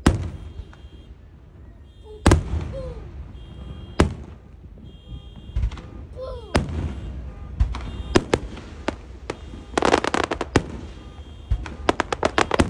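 Fireworks going off: single sharp bangs a second or two apart, a dense burst of crackling about ten seconds in, and a fast run of cracks near the end. Between the blasts a car alarm beeps in short repeated chirps, set off by the noise of the fireworks.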